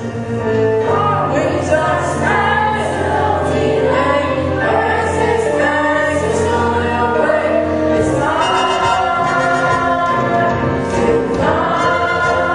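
Music with a choir singing, the chords changing every second or so. A long held chord comes in about eight seconds in, and another near the end.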